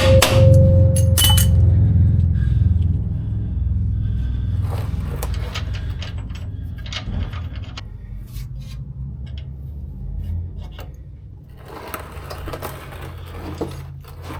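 Metal hand tools and suspension hardware clinking and scraping during bolt tightening, with a couple of sharp knocks near the start and scattered clinks later, over a steady low hum.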